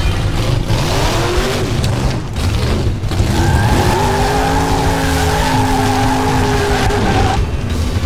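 A car driving hard with tyres squealing over a low engine rumble: the squeal wavers up and down in pitch for the first few seconds, then becomes a long steady screech from about three seconds in that stops abruptly about a second before the end.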